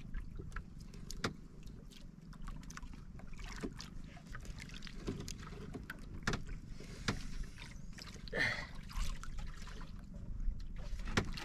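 Water lapping against the hull of a small wooden outrigger boat, with scattered light knocks and clicks from the boat and the handled fishing line. A brief voice is heard about eight seconds in.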